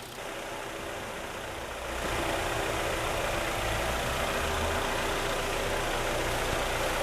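Kia Cerato's freshly overhauled G4KD four-cylinder petrol engine idling steadily, getting louder about two seconds in.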